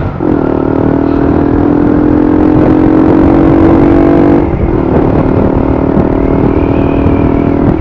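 Custom-built motorcycle engine running steadily while riding, with wind and road noise. The engine note drops briefly twice, at the start and about halfway through.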